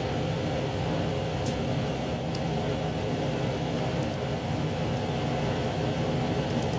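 2700 series diesel railcar under way, heard from inside the front car: a steady engine drone and running rumble, with a few faint clicks.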